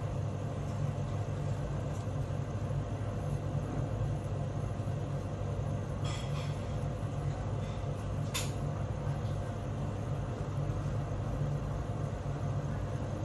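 Steady low machine hum with no change in pitch or level. A couple of short clicks come around the middle.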